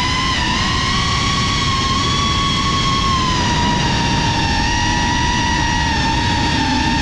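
Cinelog 35 cinewhoop drone's small brushless motors whining at a fairly steady pitch in cruising flight, over a rushing wind and propwash noise on the onboard camera's microphone. The whine sags slightly in pitch about halfway through.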